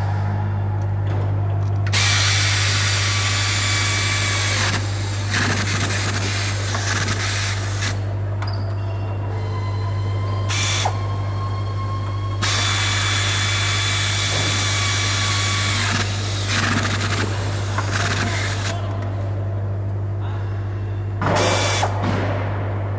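Handheld pneumatic tool running in several bursts of two to four seconds, with short pauses between them, as it drives bolts at the base of a generator set. A steady low hum runs underneath.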